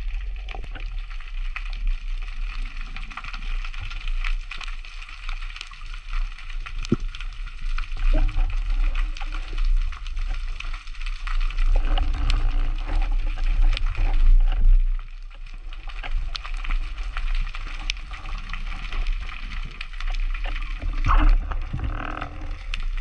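Underwater sound picked up by a camera in a waterproof housing: a steady watery rush and gurgling over a low rumble, dotted with many small clicks.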